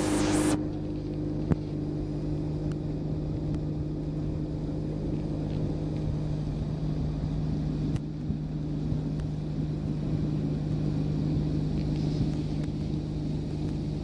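Boat's outboard motor running steadily at low speed, a constant low hum. A brief rush of noise comes right at the start.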